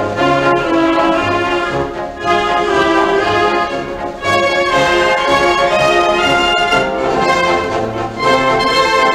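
Military band playing a march, with the brass section (trumpets and trombones) carrying the tune over low bass notes, from a 1943 Decca disc recording.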